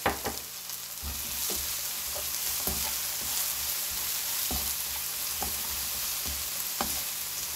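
A spoon stirring and tossing stir-fried dried shrimp, garlic scapes and walnuts in a hot nonstick wok. It scrapes and taps the pan now and then while the food keeps sizzling, the burner already switched off.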